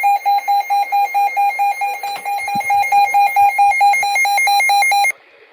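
Emergency alert tone for a tornado warning: a loud electronic beeping, about four beeps a second, that runs together into a steadier tone after about three seconds and cuts off suddenly near the end.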